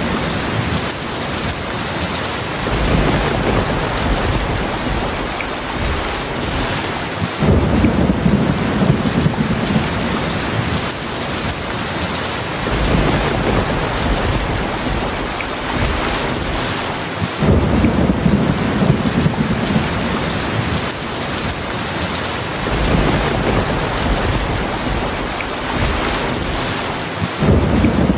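Heavy rain falling steadily, with low thunder rumbles rolling in about every five seconds.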